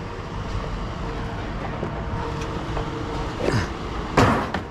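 An engine running steadily with a low rumble, with two short squeals sliding down in pitch near the end.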